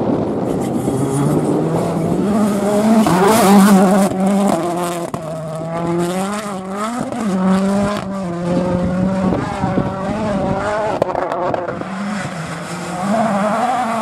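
Ford Puma Rally1 car's turbocharged four-cylinder engine at full rally pace on gravel. The engine note rises in steps over the first few seconds, drops and picks up again as the car lifts and accelerates, and climbs once more near the end.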